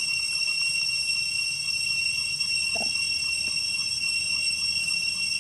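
Steady, high-pitched evening insect chorus of several held tones, with a faint fast pulsing chirp beneath it. A brief low sound comes about three seconds in.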